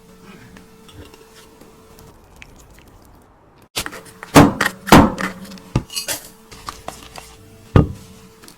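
Kitchen utensils and dishes knocking and clattering. It starts quiet with only a faint steady hum, then a run of sharp knocks begins a little under halfway through, the loudest two about half a second apart, and one last sharp knock comes near the end.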